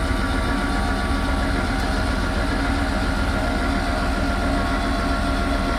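Electric trailer tongue jack motor running steadily, raising the trailer tongue to take the weight off the hitch so the weight-distribution spring bars can be fitted.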